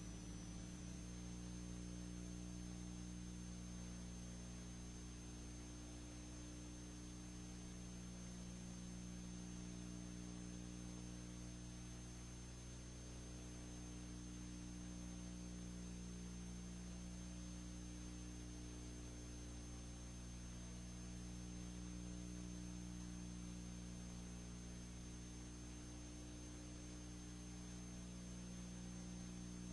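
Steady low electrical hum with hiss and a thin high whine above it: the background noise of a transfer of a film with no soundtrack.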